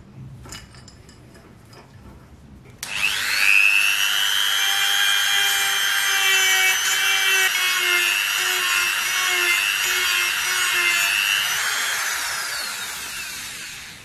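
A handheld rotary tool with a small sanding drum spins up about three seconds in with a high whine and sands a small metal gun part held in a vise, then spins down and fades near the end. A few light clicks of handling come before it starts.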